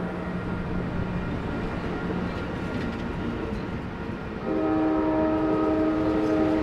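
Passenger train rumbling through a grade crossing. About four and a half seconds in, the locomotive's multi-chime air horn starts a long blast, a chord of several notes held to the end, sounded as part of the crossing signal.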